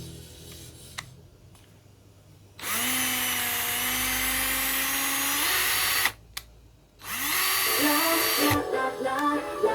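Impact drill-driver's motor running at a steady speed for about three and a half seconds, its pitch rising a little just before it stops. After a short pause it starts running again.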